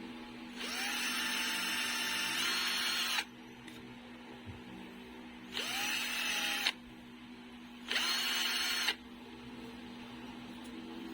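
Small electric drill run in three short bursts, the first the longest, each spinning up with a rising whine, boring a hole through the thin plastic case of a digital kitchen timer.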